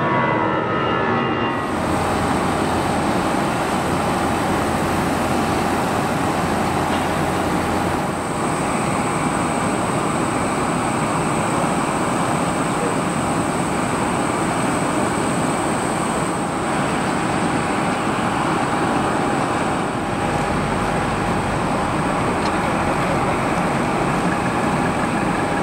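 A jet airliner climbing away, its pitch falling, gives way after about a second and a half to steady machinery noise and hiss with a steady whine, from a truck-mounted de-icing boom spraying a parked jet airliner.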